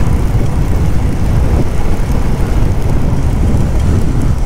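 Motorcycle on the move: a steady low rumble of wind on the microphone mixed with the engine and road noise, with no change in pace.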